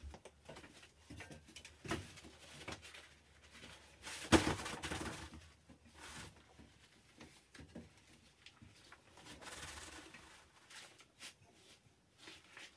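Faint rustling and light taps of a wallpaper strip being positioned and smoothed onto a wall by hand. The loudest rustle comes about four seconds in, with smaller ones near two and ten seconds.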